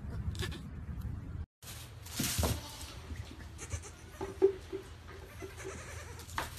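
Goat kids bleating: a quick run of short calls about halfway through, after a brief burst of scuffling noise.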